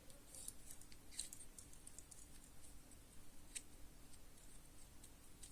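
Near silence with a few faint, sharp clicks from handling a Victorinox Swiss Army knife and its small tools.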